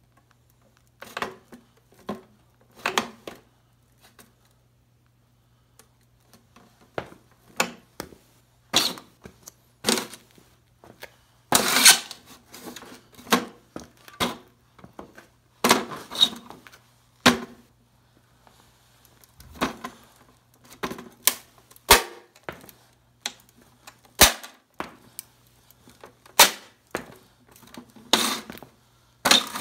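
Heavy leather boots stomping on and kicking an old tube radio's cabinet, a long irregular series of sharp knocks and cracks.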